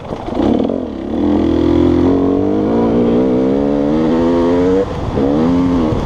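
Dirt bike engine accelerating hard, heard from the rider's helmet: the revs climb steadily for several seconds, dip sharply near the end, then climb again.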